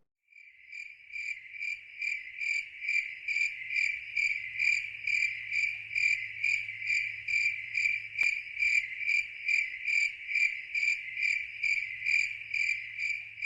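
A cricket chirping steadily, a regular run of short high-pitched chirps at about two and a half a second.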